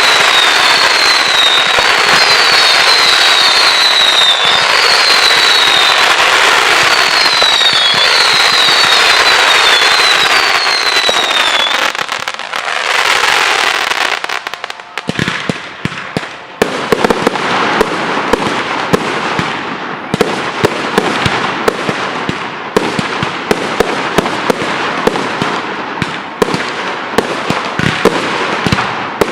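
Professional fireworks display: dense crackling with a string of whistles, each falling in pitch. It lets up briefly about halfway, then goes on as a rapid, continuous crackle of many small sharp bangs.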